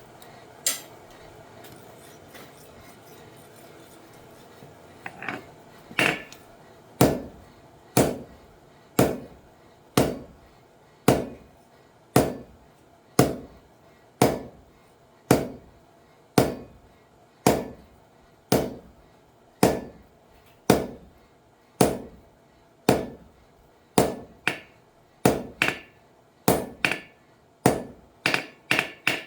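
Blacksmith's hammer forging a titanium spoon on an anvil: sharp blows about once a second, coming faster near the end, after a few lighter taps. A faint steady hum runs underneath.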